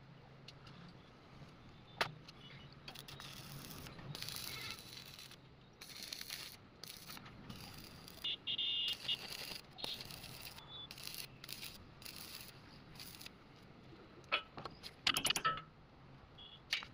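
Metal parts and tools clinking, scraping and rattling as they are handled, with a sharp click about two seconds in and a quick run of clicks near the end, over a faint low hum.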